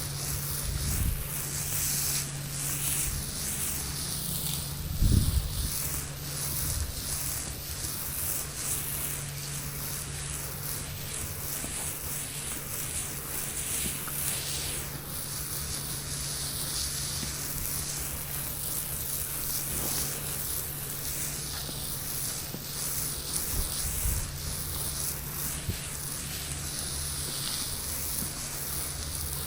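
Steady hiss of a soft-wash sprayer laying sodium hypochlorite mix onto a concrete driveway, over a steady low hum. A brief thump about five seconds in.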